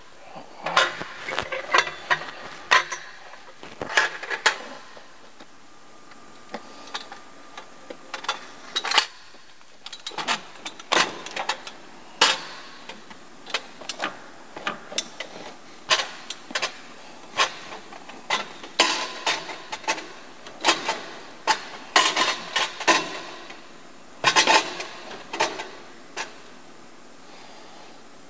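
Irregular metal clanks, knocks and clicks as a turbocharger on its exhaust up-pipe is lowered into an engine bay and worked into position against the surrounding parts.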